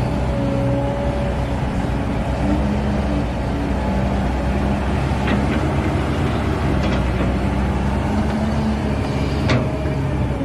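Kobelco excavator's diesel engine running under load as it works, its pitch stepping up and down with the hydraulics. A few sharp knocks come about halfway through and again near the end.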